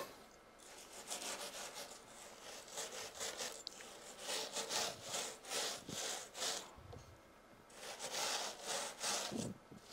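Spatula spreading a coarse, crunchy chocolate crumb mixture across a silicone baking mat: repeated rasping scrapes, about two a second, in runs with a short pause in the middle.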